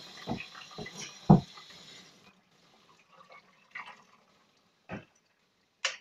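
Water hissing from a hand-held hose sprayer onto a wet dog in a laundry tub, stopping about two seconds in, with a few soft knocks while it runs. Afterwards there is quiet handling noise and two short clicks near the end.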